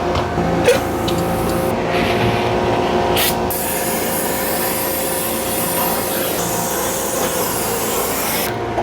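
A brazing torch hissing steadily as it heats the refrigerant joints to sweat them apart. The hiss starts about three and a half seconds in and cuts off just before the end, over a steady machinery hum with a few knocks in the first seconds.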